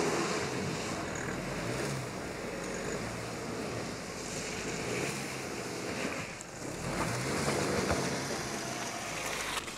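Opel Astra's 1.6 petrol engine working under load as the car crawls up a muddy, rutted track, mixed with a steady hiss.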